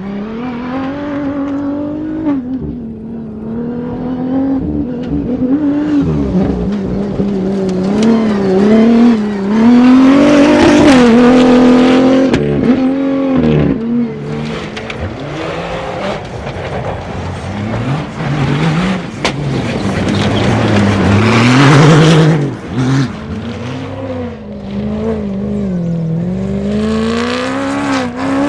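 Rally-raid vehicles' engines revving hard, the pitch climbing and dropping again and again with throttle and gear changes as they pass. Loudest about ten seconds in and again around twenty-two seconds.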